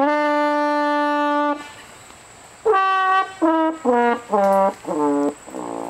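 Brass horn blown in one long held note, then after a pause a quick run of five or six shorter notes stepping down in pitch, the last one fainter.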